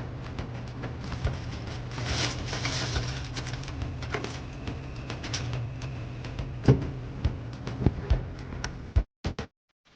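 Restocking a vending machine: products and packaging being handled, with frequent clicks, knocks and rustling over a steady low hum. It stops abruptly near the end.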